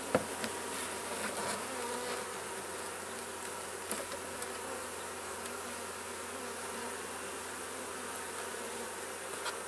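Honeybees buzzing steadily around an open hive. Just after the start, a single sharp knock as the plastic top feeder is set down on the wooden hive body.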